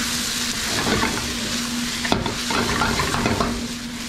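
Chicken, garlic, ginger and scallions sizzling hard in a wok over a high-heat burner, while a spatula stirs and knocks against the wok. A steady hiss of frying runs under scattered sharp scrapes and clicks, the strongest about two seconds in.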